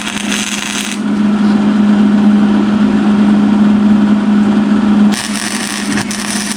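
A power tool running with a steady hum and a rough rubbing noise; the hum drops out in the first second and again near the end, leaving a brighter hiss.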